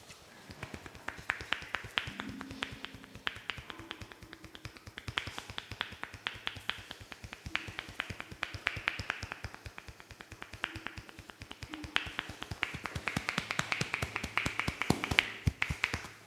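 Percussive Indian head massage: a rapid, uneven run of sharp taps and snaps from the masseur's hands and fingers working on the head, several strikes a second, loudest near the end.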